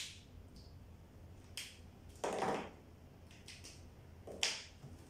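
Several sharp clicks and knocks from a person moving about a small room, with a short scuffing sound about two seconds in.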